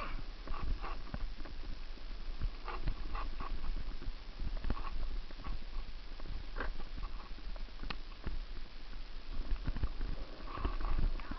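Irregular clatter and knocks of a mountain bike jolting fast down a rough dirt trail, over a steady low rumble of wind.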